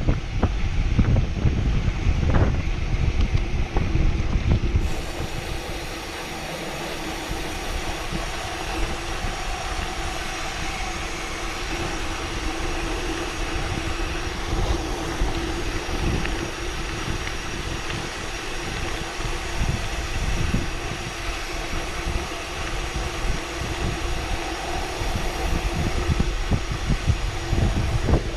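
Riding noise on a fast downhill run. Wind buffets the microphone for the first five seconds, then a steady droning hum carries on with many small rattles and bumps from the rough ground.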